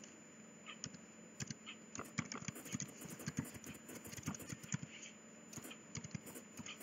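Computer keyboard being typed on: faint, irregular keystrokes, with a short pause about the first second.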